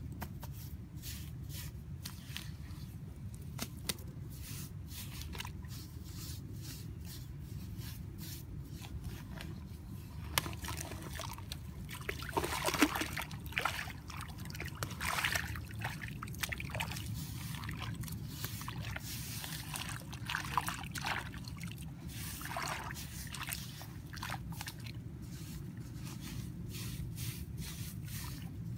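Bare hands scooping, scraping and slapping wet soil and mud, with water sloshing and trickling. Many short scrapes and squelches, busiest in the middle, over a steady low rumble.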